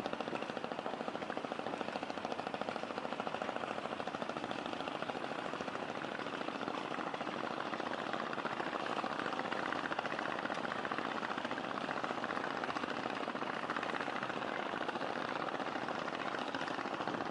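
Boat engine running steadily with a fast, even chugging beat.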